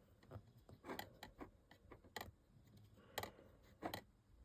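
Small plastic mini building bricks clicking and tapping as pieces are handled and pressed together. The clicks are short, sharp and irregular, about eight of them.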